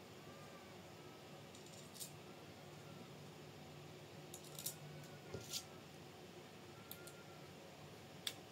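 Small metal parts and tools handled on a workbench: a few light, separate clicks and clinks scattered over a quiet room, the sharpest one near the end.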